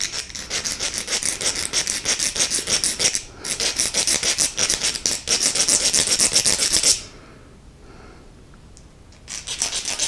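Small hand file rasping in rapid back-and-forth strokes on a toggle switch's little metal on-off plate, filing off its locating tab. There is a short break about three seconds in; the strokes stop about seven seconds in and start again shortly before the end.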